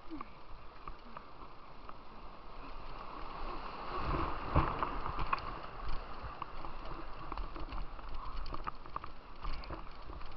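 Rushing white water of a slalom course heard from a kayak, with scattered knocks and splashes against the boat; the water grows louder and heavier about four seconds in.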